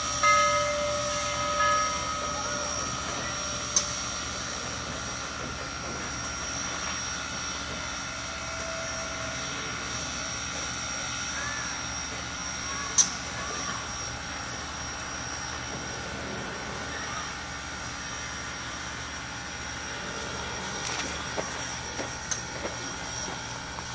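Southern Railway 2-8-2 steam locomotive 4501 standing under steam on a slowly turning turntable: a steady hiss and hum with a high constant whine. A few sharp clicks come about four seconds in, again near the middle, and several near the end.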